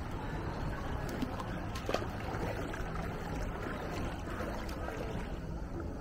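Steady outdoor ambient noise, mostly a low rumble, with a couple of sharp clicks about one and two seconds in.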